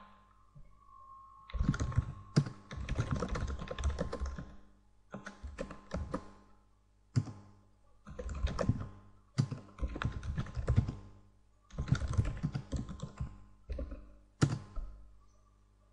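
Typing on a computer keyboard, entering shell commands in quick bursts of keystrokes with short pauses between, and a few louder single key strikes.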